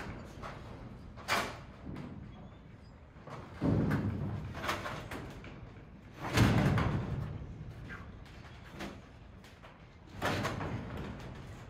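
A series of irregular heavy knocks and thuds from work on a wooden barn post and brace, the loudest about six seconds in, each ringing on briefly.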